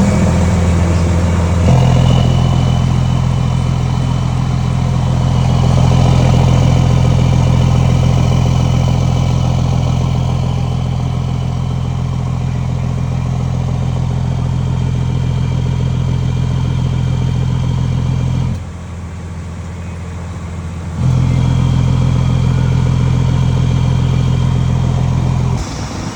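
Scania truck's diesel engine running at steady, held revs through a fully open exhaust with dual tips, giving a low, even rumble. The sound drops back for about two seconds a little past the middle and again near the end.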